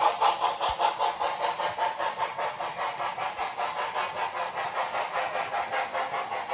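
Model steam locomotive sound decoder (TCS WOW Sound V4) playing steady, even steam chuffs, about four to five a second, through the locomotive's small speaker.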